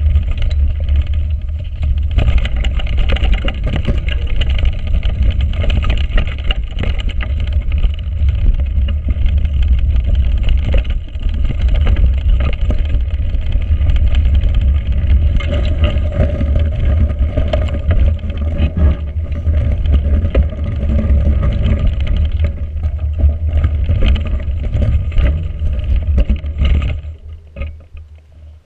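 Mountain bike riding over a frozen, bumpy grass trail, heard from a handlebar-mounted action camera: wind buffets the microphone in a steady low rumble, and the Schwalbe Smart Sam 29x2.1 tyres roll over the ground among many small knocks and rattles from the bike. The noise falls away sharply near the end as the bike slows.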